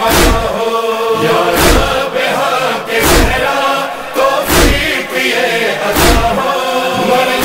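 Urdu nauha lament sung in the gap between the solo lines: a chorus of voices chanting over a deep thump that beats about every second and a half.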